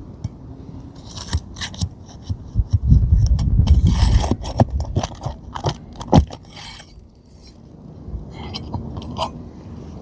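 Metal pry bar scraping and clicking against asphalt roof shingles as they are unsealed and worked loose, with a stretch of low rumbling handling noise from about three to four and a half seconds in.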